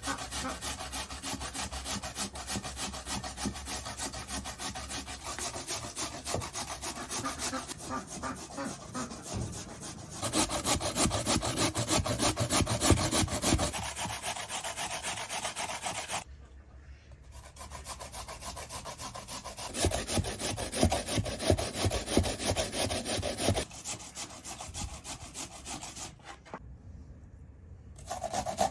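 Rapid, rhythmic scraping strokes in several runs, broken by short pauses.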